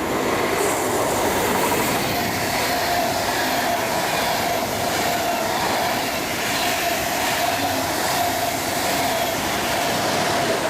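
Train passing close by: steady rolling noise of wheels on rails with a steady whining tone throughout.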